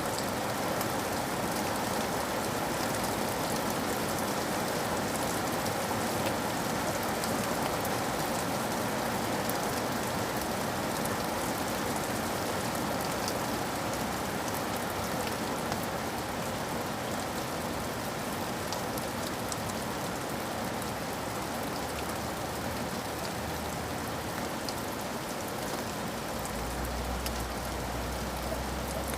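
Steady rain falling, with fine scattered drop ticks. A low rumble comes in near the end.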